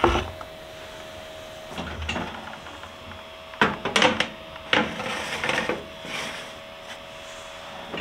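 Baking tray being slid into an oven: a series of knocks and scrapes of the tray against the oven rack.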